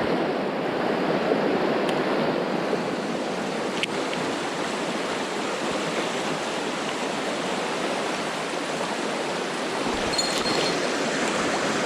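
Mountain stream water rushing steadily over rocks, with a couple of faint ticks about two and four seconds in.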